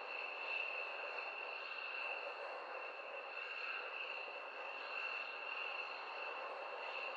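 Distant jet aircraft engine running: a steady rush with a constant high-pitched whine over it.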